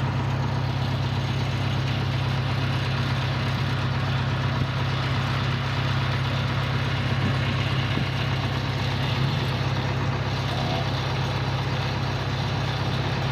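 An engine running steadily at one constant speed, with a strong low hum.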